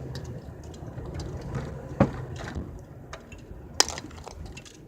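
Two sharp pops, almost two seconds apart, from the front suspension and steering of a 2005 Chevy Cavalier, over the steady low rumble of the moving car. The popping began after a new rack and pinion was fitted and the front end was loosened and retightened; the owner thinks the steering is now out of line.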